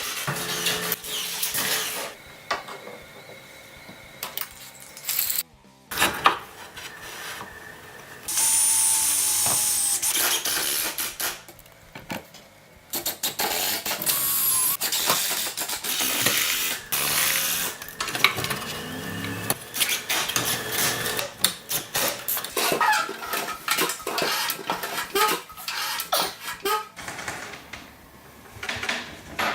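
Workshop assembly sounds: short runs of a power tool, the longest lasting about four seconds, among many knocks and clatters of tools and wood.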